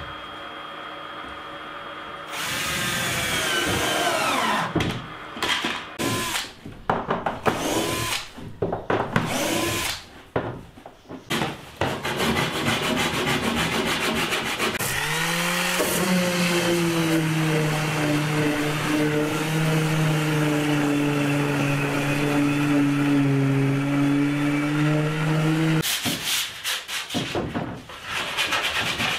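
Cordless drill working screws in a plywood kayak deck, running in stop-start bursts with its motor speeding up and slowing down. A steady humming motor with a slowly sinking pitch follows for about fourteen seconds. Near the end, wooden knocks and clatter as plywood pieces are handled.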